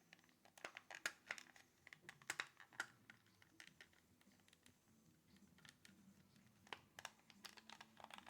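Faint, irregular plastic clicks of a PS4 controller's buttons and trigger being pressed to test them, with a quiet stretch in the middle.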